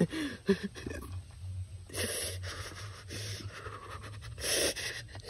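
A man breathing hard and panting in the cold of an ice-water bath, with a few heavy breaths, two of them louder.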